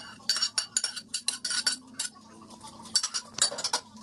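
A utensil clinking and scraping against a frying pan and plate as the egg-and-tonkatsu topping is pushed off onto rice: a quick run of sharp clinks, then a second bunch near the end.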